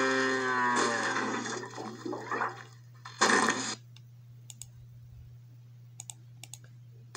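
A cartoon tractor's cow-like moo played through laptop speakers, dying away in the first second. Mixed clattering noise follows, then a short, loud rush of noise about three seconds in. After that it goes quiet apart from a few faint computer mouse clicks.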